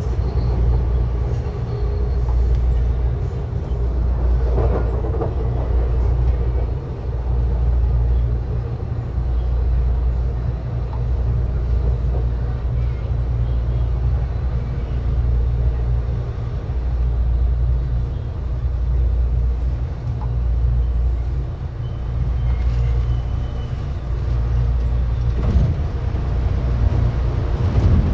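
Electric commuter train running along the track, heard from inside a passenger car. A steady low rumble swells and eases every few seconds.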